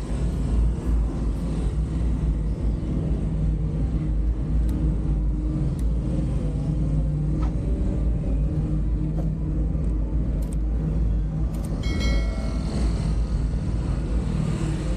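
Riding a motorbike along a road: wind rumbling on the microphone over the engine's steady, slightly wavering hum. About twelve seconds in there is a brief high-pitched tone.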